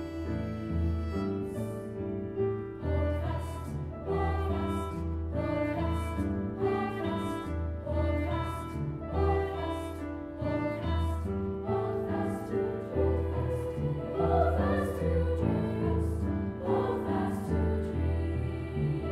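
Middle school choir singing in parts, accompanied by double bass and violin; the bass plays low notes on a steady beat beneath the voices. The choir's singing comes in strongly about a second and a half in.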